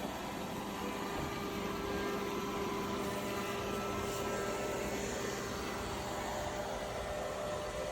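Robot vacuum cleaner running: a steady hum and whoosh from its suction motor, holding even throughout.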